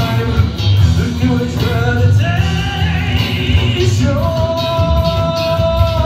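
Live rock band: a male singer over an electric guitar and drums. A long held note runs through the second half.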